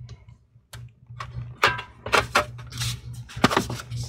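Aluminium bottom case of a MacBook Air being set and slid into place on the chassis: a run of light metal clicks, taps and short scrapes, over a steady low hum.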